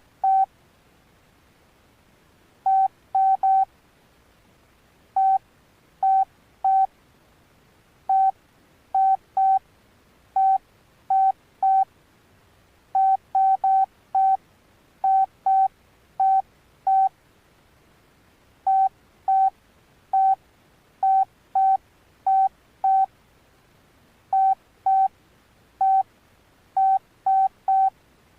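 Alcatel OneTouch Retro flip phone's key beeps: short beeps of one pitch at irregular intervals, singly and in quick runs of two to four, as keys are pressed to move through the menus.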